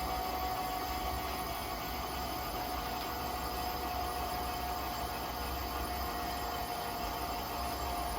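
Metal lathe running steadily: a constant whine over a low hum and hiss.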